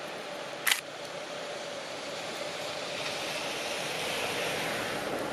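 AN8800 diesel railcar running across a steel truss bridge at a distance: a steady rumbling hiss with a faint steady tone, swelling a little after about three seconds. A single sharp click sounds under a second in.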